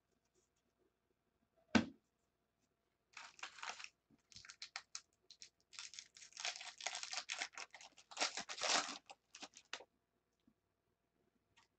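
A single thump about two seconds in, then the foil wrapper of a 2015 Bowman Draft jumbo pack of baseball cards being torn open and crinkled in a run of crackly bursts lasting about six seconds.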